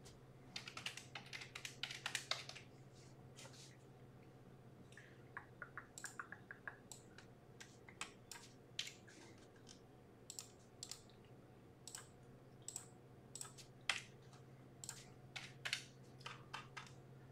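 Faint typing on a computer keyboard: irregular runs of quick keystrokes and clicks with short pauses between them, over a low steady hum.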